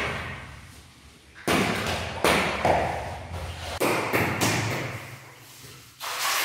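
Small plastic balls bouncing on a tiled floor: about six separate thuds, each trailing off in an echo off the tiles.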